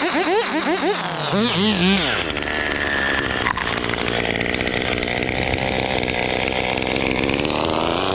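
Chainsaw engine revving in quick rises and falls for about two seconds. The pitch then drops and the engine holds a steady high-speed drone to the end.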